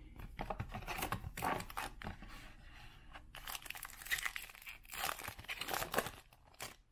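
Foil wrapper of a Topps Big League baseball card pack crinkling and being torn open by hand, a run of crackly rustles that is loudest about four to six seconds in.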